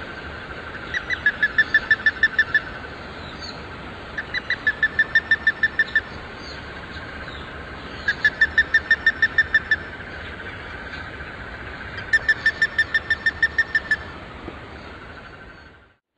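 Plumbeous ibis giving its penetrating alarm call: four runs of quick, evenly repeated loud notes, each about two seconds long and a couple of seconds apart. It is a male defending its nest territory from a post.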